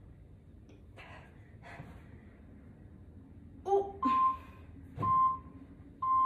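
Two heavy breaths, then an interval timer's countdown: a short lower tone followed by three short high beeps a second apart, counting down the end of the rest period before the next exercise starts.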